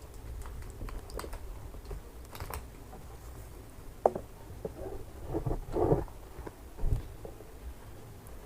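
Scattered light taps and clicks, like typing or handling small objects, with a few louder knocks about four, six and seven seconds in.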